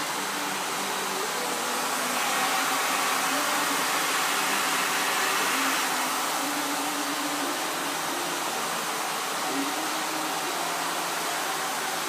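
Vacuum cleaner running steadily, a loud even rush of motor and airflow drawn through its wand and nozzle. It grows a little louder for a few seconds about two seconds in, then settles back.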